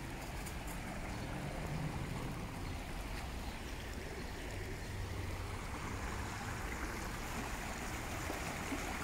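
Shallow river water babbling and rushing over stones, a steady watery noise that grows a little louder near the end.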